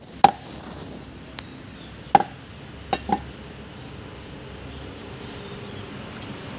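Large knife chopping duck meat on a board: sharp single chops near the start and about two seconds in, then two quick ones close together around three seconds, with a lighter tap between.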